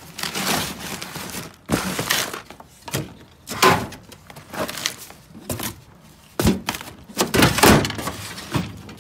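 Rummaging in a garage: things shoved aside and the metal drawers of a parts cabinet handled, a string of separate knocks, scrapes and thuds, loudest toward the end.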